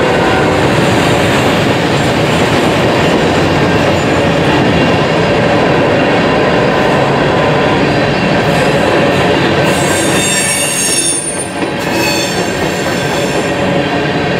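Freight train of covered hopper cars rolling past: steady rumble and clatter of steel wheels on the rails, with a high metallic squeal joining in about ten seconds in.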